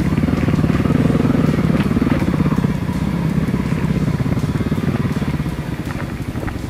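Kawasaki KLX250S dual-sport motorcycle's single-cylinder four-stroke engine running at a steady low speed, easing off slightly partway through, with a few light clicks over it.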